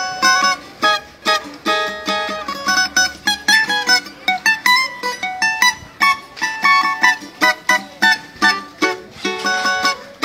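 Cavaquinho playing an instrumental passage of quick plucked melody notes and strummed chords.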